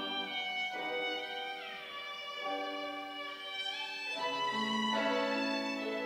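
Music from a church choir's Sunday anthem: held notes that move to a new pitch every second or so, with a slide down in pitch about a second and a half in and a new, lower note entering about four seconds in.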